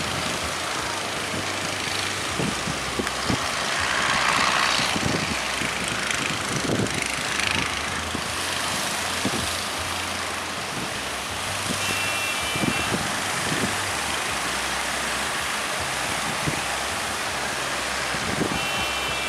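A motor running steadily under a rushing roar of wind and surf, with wind thumping on the microphone. A short high beeping tone sounds about twelve seconds in and again near the end.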